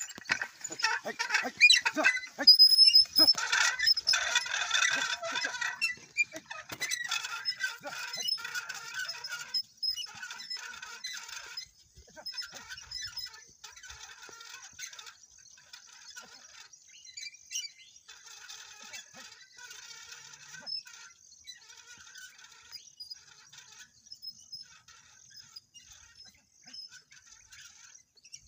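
Ox-drawn metal plough working through the soil: clanking, scraping and a brief squeak from the frame and blade, loudest in the first few seconds, then fading to faint scattered scraping and clicks as the team pulls away.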